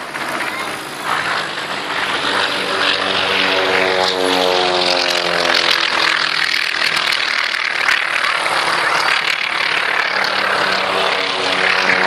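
North American T-28 Fennec's nine-cylinder Wright radial engine and propeller running in a low pass. It grows louder about two seconds in and falls in pitch as the aircraft goes by.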